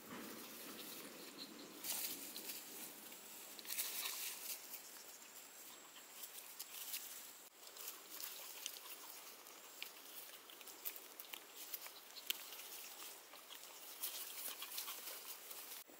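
Puppies scuffling and playing in grass, then a puppy gnawing and chewing at something on the ground: faint, irregular crackly clicks and ticks.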